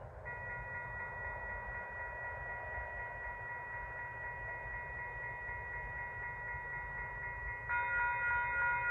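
A railway level-crossing warning bell ringing as the train approaches. Its clanging tones at first blend into a steady ring, then get louder and pulse plainly a few times a second near the end, over the low noise of the approaching train.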